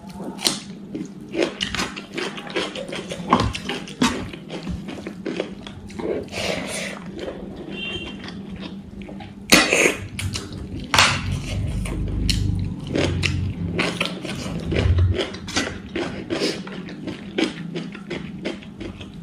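Close-miked eating sounds: crisp crunching bites and chewing of raw cucumber with wet mouth and lip noises, in a quick run of sharp crunches with two heavier ones about halfway through.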